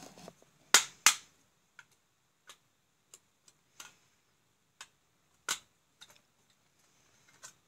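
Hard plastic and metal enclosure parts of a disassembled electronic device clicking and knocking as they are handled and turned over. Two loud sharp knocks come close together about a second in, followed by about ten lighter, irregular taps.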